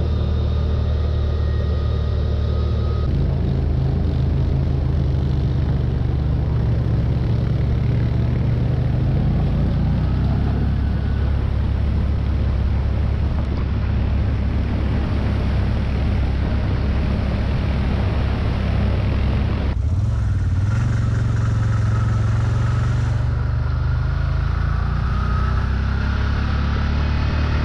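Side-by-side UTV engine running steadily while riding a trail, with a haze of tyre and wind noise. The engine note changes abruptly about three seconds in and again near the twenty-second mark.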